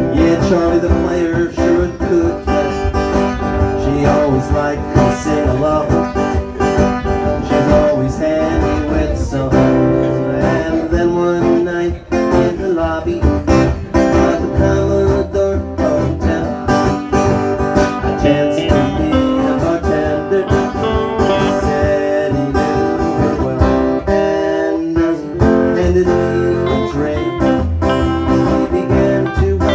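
Live band of electric guitar, violin and acoustic guitar playing a country-blues song, with the guitars strumming and picking while the violin is bowed.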